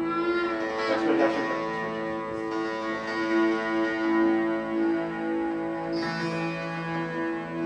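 Strings of a wooden sound cradle being strummed, ringing together as one steady drone of many sustained notes. A short wavering higher sound rises over it about a second in.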